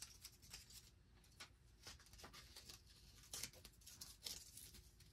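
Faint, irregular rustling and crinkling of blue painter's tape being handled and pressed down by hand, with a couple of slightly louder crackles near the end.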